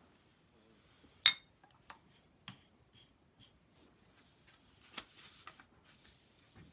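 A small ceramic paint dish set down on a hard tabletop with a sharp, ringing clink about a second in, followed by several lighter clicks and taps. Near the end, a soft rustle of the sheet of rice paper being slid across the table.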